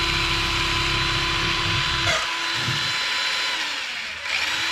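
Tamiya TD4 Super Avante RC buggy's new 550-size electric motor and four-wheel-drive geartrain revved up, spinning at a steady high speed with a constant whine. It eases off a little past three and a half seconds in and spins up again near the end.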